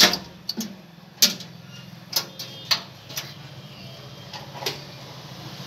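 Irregular sharp clicks and light knocks, about eight of them, loudest at the very start and a little over a second in, from plastic wiring connectors and cables being handled and pushed together in an e-rickshaw's controller wiring. A steady low hum runs underneath.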